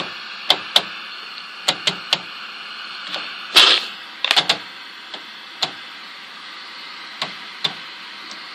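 Rotary channel selector knob of a 1985 RCA television clicking through its detents, a dozen or so irregular clicks with a louder scrape about three and a half seconds in, over the set's steady static hiss.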